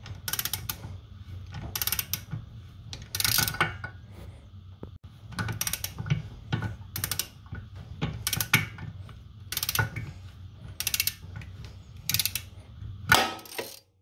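Long hand ratchet on the BMW X3M/X4M differential's 50mm drive-shaft nut, clicking in about ten short bursts roughly a second apart as it is swung back and forth to unscrew the freshly broken-loose nut. A steady low hum runs underneath.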